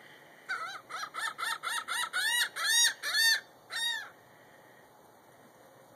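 A gull giving a long call: a run of about fifteen arched, laughing notes, short and quick at first, then longer, louder and more spaced, ending about four seconds in.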